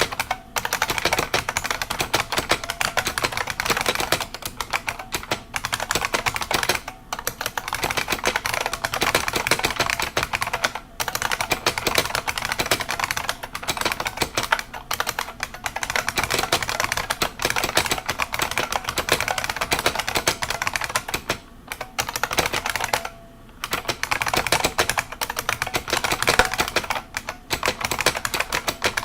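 IBM Model M buckling-spring keyboard being typed on rapidly: a dense, continuous stream of keystroke clacks. There are brief pauses around 7, 11 and 21 seconds in, and a slightly longer one about 23 seconds in.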